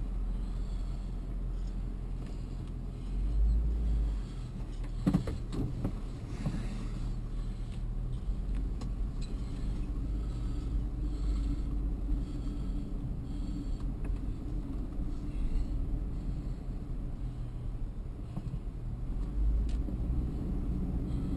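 Car engine running, heard from inside the cabin as the car drives, a steady low hum and rumble. A deeper rumble swells briefly about three seconds in and again near the end, and a few sharp clicks come about five seconds in.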